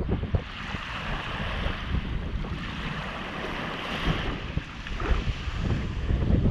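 Sea water washing and splashing, with wind buffeting the microphone in low gusts.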